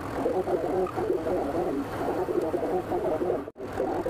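Manual metal lathe running while the cutting tool turns a steel workpiece: a busy, rattling machine noise that cuts out for an instant about three and a half seconds in.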